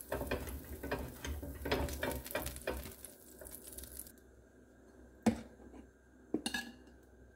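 Butter crackling and sizzling as a block of butter is rubbed over a hot iron dosa griddle, dying down after about three seconds. Then a sharp knock about five seconds in and a few lighter clicks a second later.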